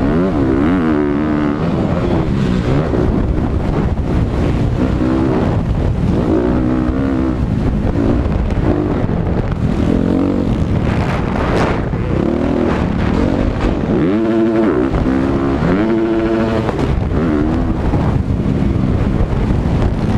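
Several motocross dirt bikes racing, their engines repeatedly revving up and dropping back as they accelerate and shift through the corners and jumps.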